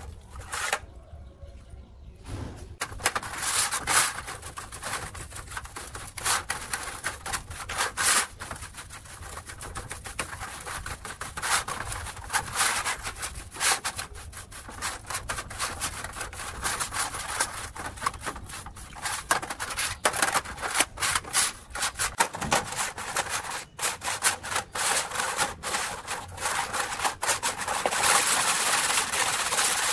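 A stiff paintbrush scrubbing a rusty chainsaw bar and chain in a shallow steel tray of liquid, in irregular strokes with splashing and the chain's links clinking. Near the end the scrubbing gives way to hands kneading the chain in the liquid, a louder, steadier sloshing and rattle.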